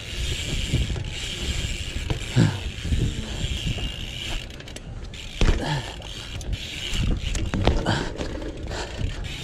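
BMX bike riding on concrete: tyres rolling and the rear hub ticking, with several sharp knocks from the bike and its landings, the loudest about two and a half, five and a half and seven and a half seconds in.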